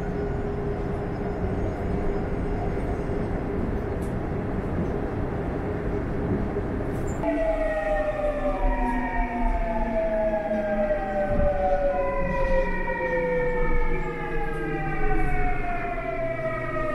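Electric subway train running: a steady rumble, then from about seven seconds in a set of motor whines that slowly fall in pitch as the train slows.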